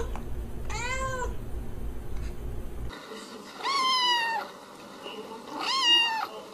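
A calico cat meows once. Then a ginger-and-white kitten meows twice, in a higher pitch.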